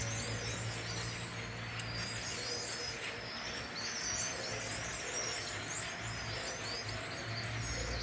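A large flock of small birds chattering together in the treetops: a dense, unbroken mass of overlapping high chirps and whistles. A low steady hum runs underneath.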